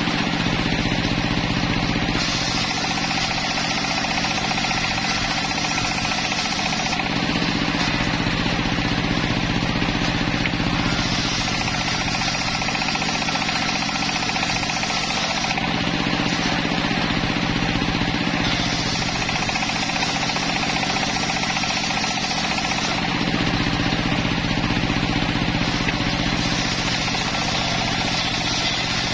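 Homemade engine-driven circular sawmill running steadily, its large toothed blade cutting timber; the higher hiss of the blade in the wood swells and eases four times as boards are fed through.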